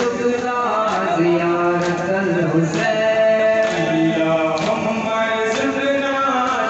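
Men chanting a Muharram lament (nauha) to a sung melody, with a steady beat of sharp slaps about once a second from the mourners' chest-beating (matam).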